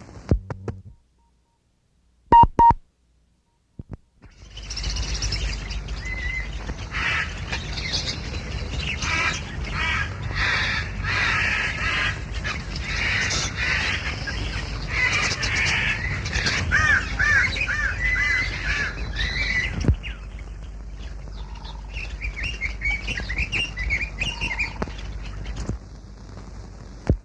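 Two short, loud beeps, then jungle ambience from a 1933 film sound-effects track: a dense chorus of chirping, warbling bird calls over a steady low hum and hiss. It thins a little about two-thirds through and stops shortly before the end.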